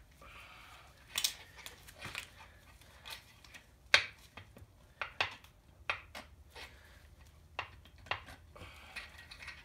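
Metal engine parts and tools clinking and clanking as they are handled and set down: a dozen or so irregular sharp knocks, the loudest about four seconds in.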